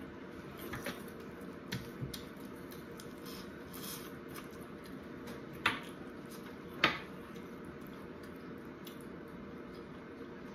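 Eating corn on the cob: wet mouth clicks and chewing, with two sharper, louder clicks about six and seven seconds in, over a faint steady hum.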